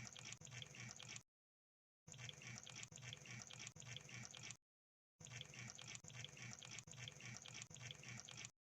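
Crab sound effect: wet, rapid clicking and crackling, in three stretches that start and stop abruptly with dead silence between them.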